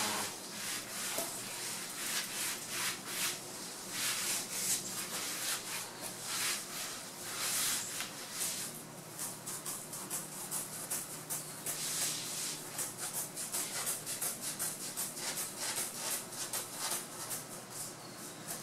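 Headliner fabric being rubbed and smoothed by hand onto the glued headliner board: a continuous run of quick, irregular scratchy strokes, several a second.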